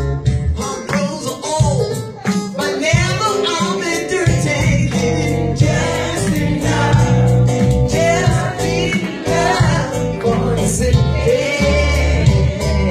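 Soul music: a singer over a full band, in a gospel style.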